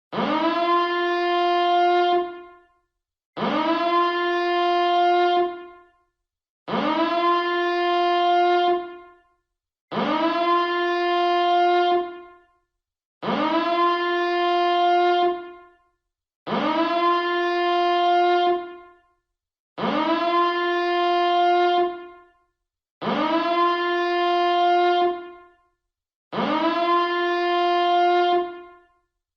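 Alarm horn billed as a nuclear power plant reactor siren, sounding in nine identical loud blasts about every three seconds. Each blast swoops quickly up in pitch, holds a steady buzzing tone for about two and a half seconds, then fades out before a short silence.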